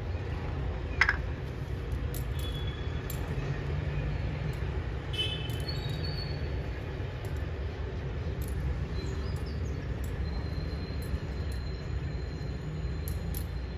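Steady low background rumble with no speech, broken by one sharp click about a second in, with a faint thin high whistle held through the later part.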